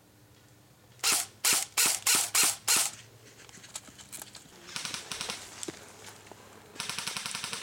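Airsoft electric guns firing: five short, loud bursts over about two seconds, starting a second in, then quieter strings of rapid shots, the last about a second long near the end.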